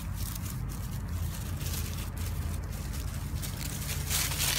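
Dry fallen leaves crunching and rustling under a small puppy running through them, louder about four seconds in as it comes close. A steady low rumble runs underneath.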